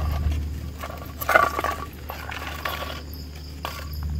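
A small lidded metal char-cloth container scraped and clattered as it is lifted out of a campfire, loudest about a second in, over a steady low rumble and a few scattered clicks.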